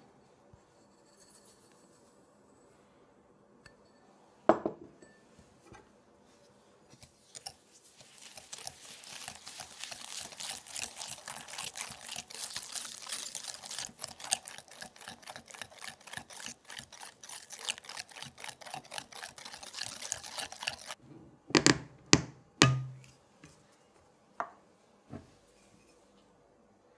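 Wire balloon whisk beating egg yolks and sugar in a glass bowl: fast, steady scraping strokes for about thirteen seconds. A sharp knock comes a few seconds before the whisking, and a cluster of loud knocks follows it.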